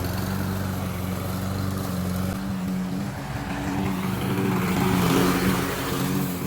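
Riding lawn mower's engine running steadily. Its deep hum changes character about two and a half seconds in and swells briefly about five seconds in.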